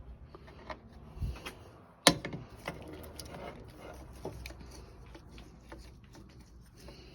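Small clicks and light metallic clatter of hand-tool work on a drill press's cord wiring, with one sharp knock about two seconds in.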